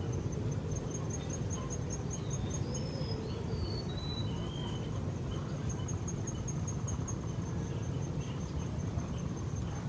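An insect chirping in a steady high-pitched pulse, about five or six chirps a second, with a short break around the middle. A few brief whistled bird notes come a few seconds in, over a steady low rumble.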